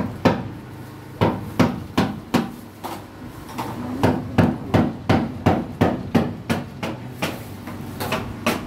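Hammer driving nails into a wooden plank: runs of sharp blows about three a second, with a short lull about three seconds in.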